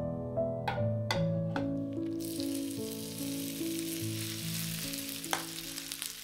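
Food sizzling in hot olive oil in a frying pan, the sizzle starting suddenly about two seconds in after a few sharp taps, with one more tap near the end.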